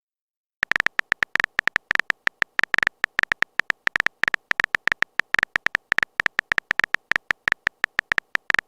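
Phone keyboard typing sound effect: a rapid, irregular run of short, clicky electronic beeps that starts about half a second in.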